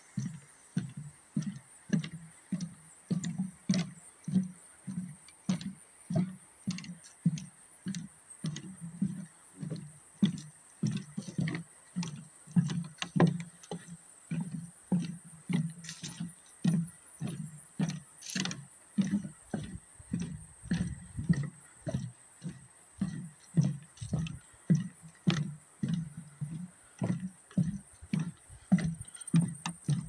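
Footsteps on a wooden boardwalk: steady walking, about two low knocks a second as each foot lands on the planks.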